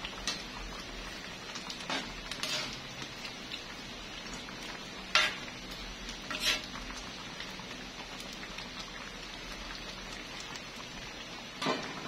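Mung bean stew being stirred in a stainless steel wok as it simmers, a steady bubbling hiss. A utensil clinks sharply against the pan several times; the loudest clinks come about five and six and a half seconds in.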